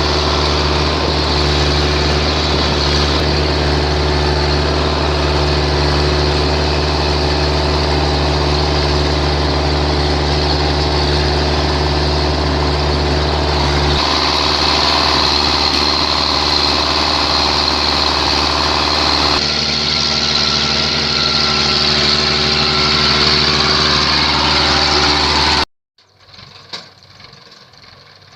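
Rice combine harvester's diesel engine and threshing machinery running steadily, loud and continuous, changing tone twice. It cuts off abruptly near the end, leaving a much fainter sound.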